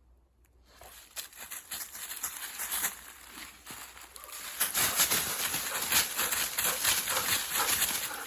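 Footsteps crunching through dry fallen leaves: a rapid, continuous crackle that starts just under a second in and grows louder about halfway through.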